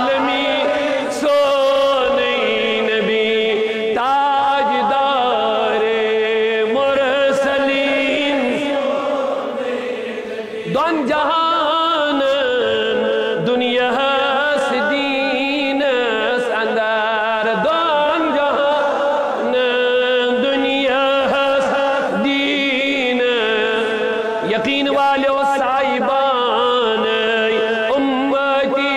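A man chanting a naat, the devotional poem in praise of the Prophet, in a long drawn-out melody of wavering, held notes sung without a break.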